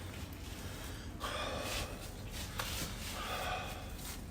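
A person breathing out heavily twice, close to the microphone, with a small click between the breaths.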